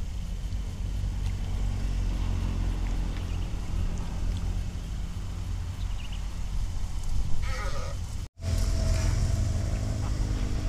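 Steady low rumble of wind buffeting the microphone, with a brief pitched call about seven seconds in. The sound cuts out for an instant just after.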